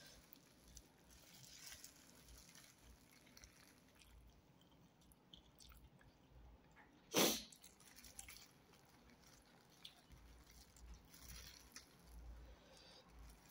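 Quiet eating sounds: faint chewing and a clear plastic food glove rustling as she handles the food. About seven seconds in comes one short, loud burst of breath-like noise.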